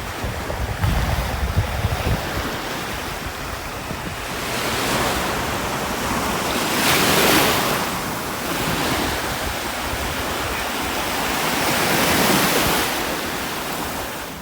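Gulf of Mexico surf: waves breaking and washing up the beach, rising and falling with each wave, loudest about seven seconds in and again near the end. Wind buffets the microphone, mostly in the first few seconds.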